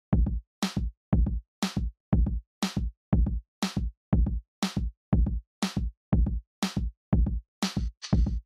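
Background music: an electronic drum-machine beat, about two hits a second with deep kicks and snappy snares, the gaps between hits nearly silent.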